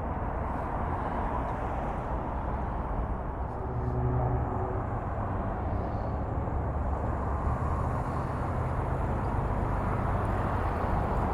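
Steady low rumble of outdoor background noise, with a faint humming tone briefly about four seconds in.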